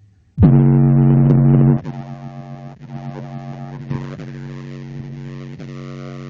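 Electronic music with heavy synth bass played through a car audio system with a 12-inch Punch subwoofer on its amplifier. It starts about half a second in, very loud at first, then drops to a steadier level after about a second and a half.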